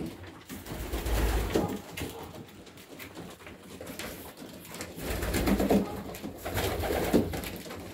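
Domestic pigeons cooing, several birds calling on and off in a small loft. Low rumbles on the microphone come about a second in and again around five seconds in.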